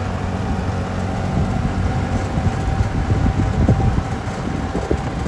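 Golf cart driving along a dirt road: a steady motor hum with the rumble and knocking of the wheels over the rough ground.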